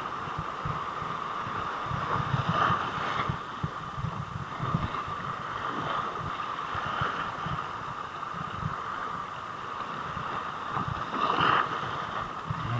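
Wind buffeting the microphone in irregular gusts over choppy sea water lapping and splashing, with a couple of brief louder swells.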